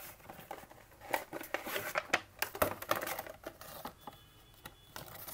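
Cardboard packaging being handled by hand: scattered taps, scrapes and rustles as the box's contents are lifted out.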